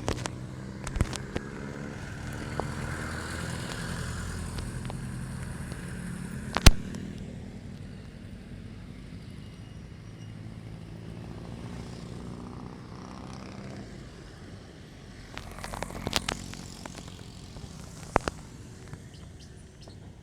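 Street traffic: vehicle engines running past, rising and fading, with a few sharp clicks, the loudest about six and a half seconds in.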